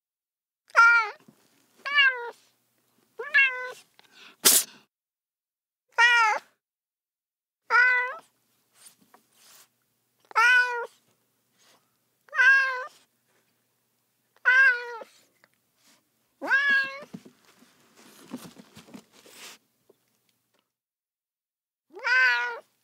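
A cat meowing over and over: about ten short meows, each rising then falling in pitch, roughly one every two seconds. A single sharp click comes a few seconds in, and a brief soft rustle follows later.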